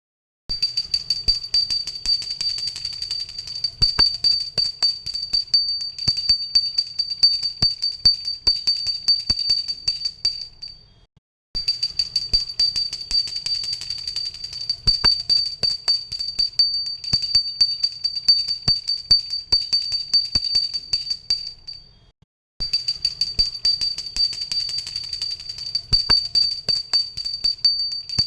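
Pooja bell (ghanti) rung continuously, its clapper striking rapidly to keep up a steady, high, bright ring. It falls silent twice, about 11 and 22 seconds in, and starts ringing again after each short pause.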